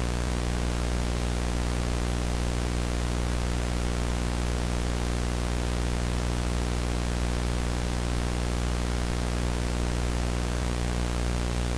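Steady television static: an even hiss with a low buzzing hum under it, unchanging throughout.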